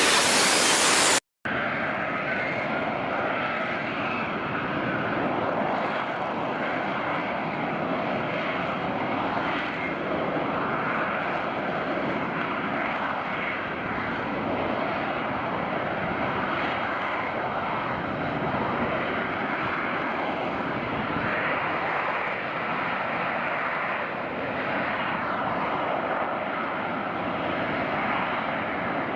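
A loud rushing hiss that cuts off abruptly about a second in, then the steady, even noise of an aircraft engine running, with no clear tone in it.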